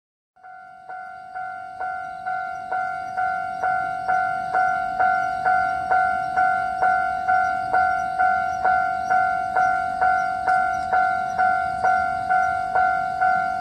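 Japanese railway level-crossing warning bell ringing, a two-tone electronic ding repeating a little over twice a second. It starts about half a second in and grows louder over the first few seconds before holding steady. The crossing is faulty after a lightning strike and kept ringing nonstop.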